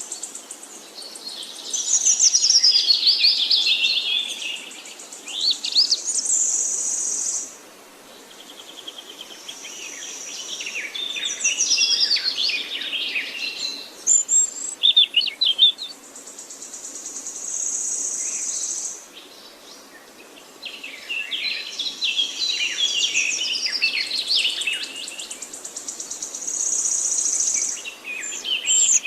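A songbird singing three long phrases of quick, varied high notes, each ending in a sustained buzzy trill, with short pauses between them.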